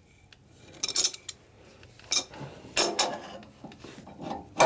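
Steel adjustable wrench clinking against a lathe's leveling jack bolt as it is fitted and turned: a few sharp metal clinks about a second in, around two and three seconds, and again near the end.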